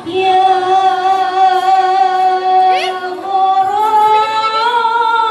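Female voice singing sholawat, holding one long note, then rising a step in pitch about three and a half seconds in.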